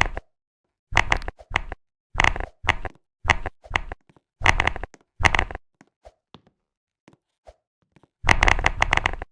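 Keys on a computer keyboard being typed in short quick runs of clicks, separated by brief pauses. About two-thirds of the way through there is a longer pause with only a few light taps, then a longer, denser run of typing near the end.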